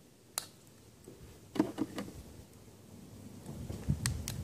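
A few sharp clicks and small knocks, with a faint low rumble building near the end: handling of the air-tool oil bottle and the impact wrench while oil is added to its air inlet.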